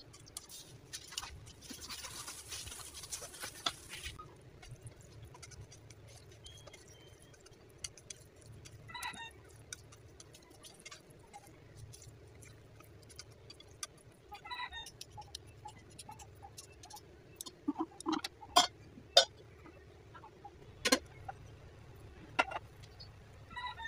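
Chopsticks clicking and scraping against a nonstick pan as sticky rice is stirred. There is a burst of hiss in the first few seconds and scattered sharp clicks, loudest and most frequent about 18 to 21 seconds in.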